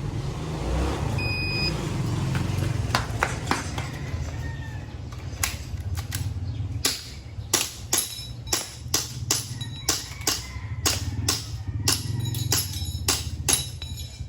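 Background music with a steady low beat. From about five seconds in, it is cut by a run of sharp cracks, irregular and roughly one to two a second.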